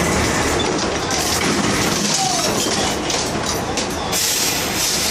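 Heavy machinery running with a steady loud rumble and clatter, with a brief short squeal about two seconds in.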